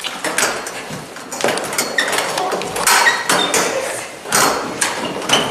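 Chairs knocking, clattering and squeaking against the floor as a row of seated people shifts them around.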